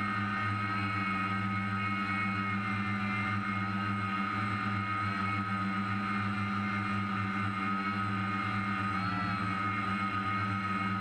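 DJI F550 hexacopter's six electric motors and propellers running steadily in flight, a constant whine of several tones over a deep hum, heard from the camera mounted on the craft.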